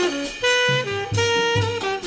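Tenor saxophone and drum kit playing jazz as a duo: the saxophone falls through a quick run into held notes over cymbal and drum strikes.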